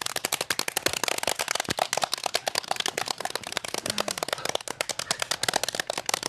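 Several people rapidly slapping their palms on a hard stage floor: a fast, irregular patter of sharp slaps.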